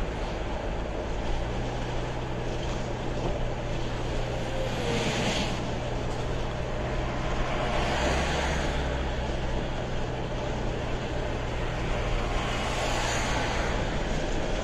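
Steady road noise of a car driving at highway speed, heard from inside the cabin: tyre roar and a low engine hum. A rushing sound swells and fades three times, about five, eight and thirteen seconds in.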